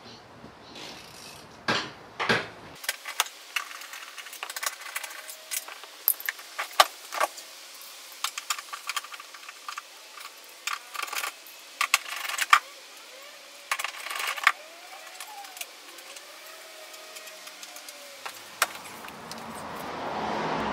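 Small metal parts and hand tools clinking and clicking: irregular sharp clicks and rattles as bolts and tools are handled, with a hiss swelling near the end.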